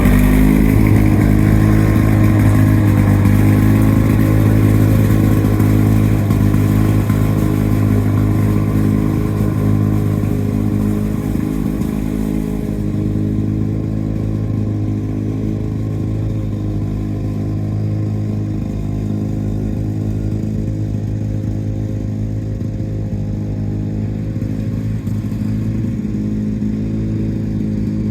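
Lawn-Boy 8073B mower's two-stroke engine running at a steady speed.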